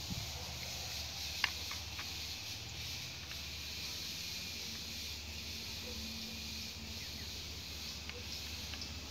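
Steady outdoor background hiss with a low hum beneath it, broken by a few faint clicks and one sharper click about a second and a half in.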